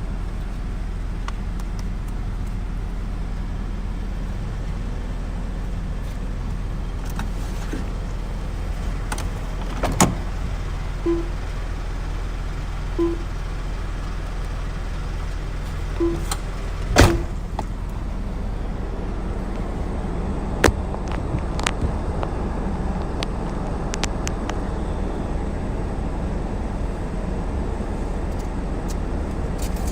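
Car wash sounds: a steady low rumble with a few sharp knocks, and four short low beeps near the middle.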